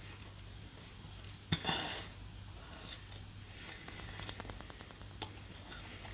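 Quiet eating sounds from chewing chicken drumstick meat: small mouth clicks and lip smacks, with a short sniff about one and a half seconds in and a quick run of tiny clicks a little after four seconds, over a steady low hum.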